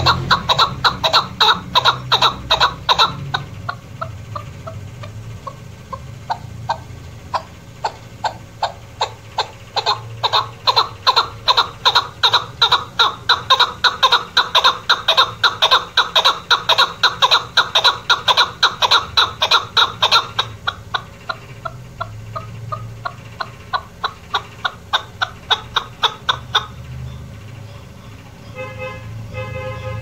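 Female chukar partridge (chakor) calling: a long series of sharp, repeated notes, about four a second, coming in dense runs with thinner stretches between. Near the end a few different, more tonal notes.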